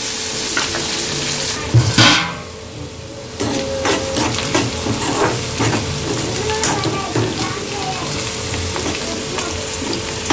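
Diced onions, dried red chillies and curry leaves sizzling in hot oil in a pan, with a metal slotted spatula scraping and clicking against the pan as it stirs. About two seconds in there is a sharp knock, and the sizzle drops for about a second before the stirring picks up again.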